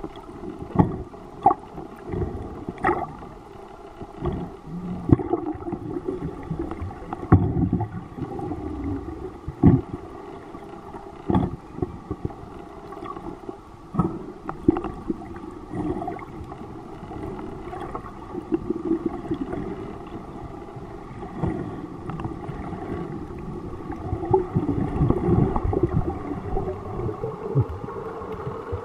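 Underwater sound picked up through the water: a boat engine's steady hum, with gurgling water and irregular sharp knocks and thumps.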